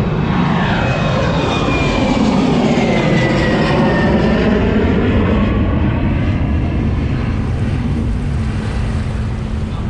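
Jet ski engine running steadily under way, its tone sweeping smoothly down and then back up over several seconds. This is the freshly rebuilt motor, running well by its owner's account.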